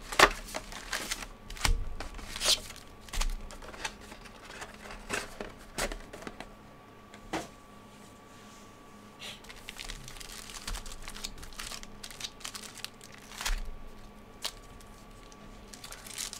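Cardboard hobby box and foil-wrapped trading card packs being handled: scattered taps and clicks as the box is opened and the packs are taken out. Near the end, the foil wrapper of a pack crinkles as it is torn open.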